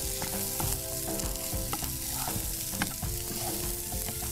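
Corn kernels and onion sizzling in a frying pan while a spatula stirs them, with irregular clicks and scrapes of the spatula against the pan.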